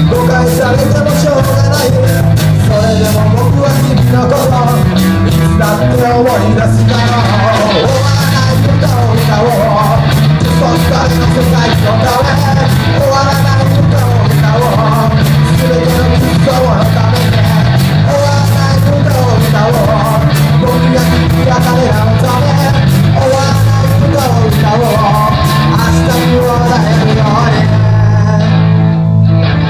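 Live student rock band covering a fast punk rock song: distorted electric guitar, bass and drums with a sung lead vocal, loud through a PA. Near the end the drums drop out and the guitar carries on.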